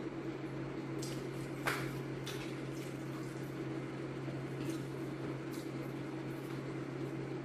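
Eating sounds of crispy fried chicken: soft chewing and mouth sounds, with a few short crackles as the crispy chicken is picked apart by hand. A steady low hum runs underneath.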